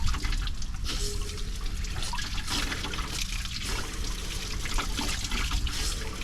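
Water from a garden hose running through a Jeep Wrangler's heater core and splashing steadily out of the open heater hose, the flush water now running clear.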